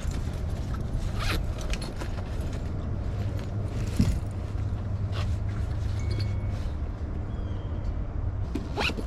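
Handling noises as gear or clothing is readied: a zipper, scattered clicks, knocks and creaks, with a sharper knock about four seconds in, over a steady low rumble.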